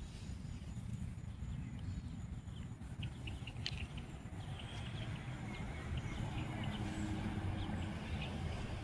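Birds giving short, scattered chirps over a steady low rumble.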